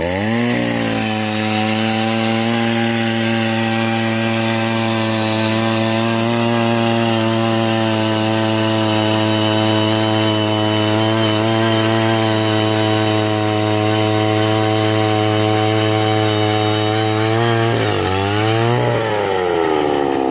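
Gas-powered ice auger engine revving up and running at steady full throttle while drilling through the ice. About 17 seconds in it eases off, revs briefly once more, and winds down near the end.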